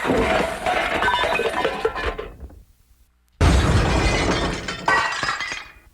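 Glass-breaking sound effects played from an old radio-station cart tape: a crash with tinkling shards dies away, and after a short silence a second loud crash starts about midway and fades out near the end.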